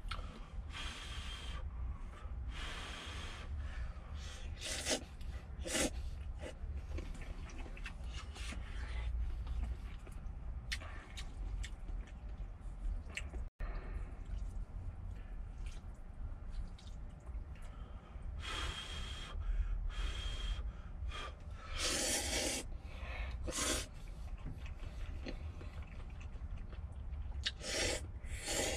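A person slurping instant ramyeon noodles from a metal pot: a run of short, noisy slurps with breathing between them, the loudest about two-thirds of the way in, over a low steady rumble.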